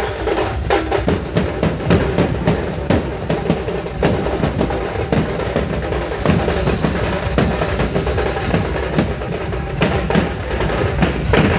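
Two-headed barrel drums (dhol) played live in a fast, steady, continuous rhythm of dense strikes.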